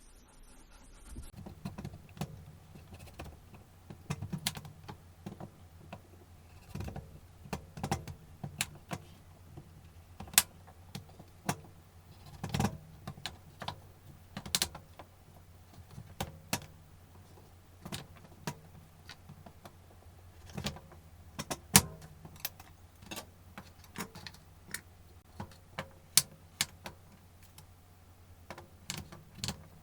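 Kitchen prep sounds: irregular sharp clicks and knocks of utensils or food being handled, a few much louder than the rest, over a steady low hum.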